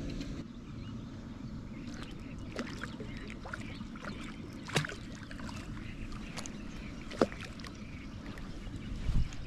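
Water splashing and sloshing as a hooked sturgeon is played at the water's edge, with scattered sharp knocks, the two loudest about 5 and 7 seconds in, and a dull thump near the end.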